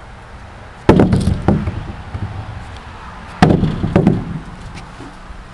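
A heavy rock of about three pounds knocked down onto wooden table boards: two loud knocks, each followed about half a second later by a lighter one, the second pair coming about two and a half seconds after the first.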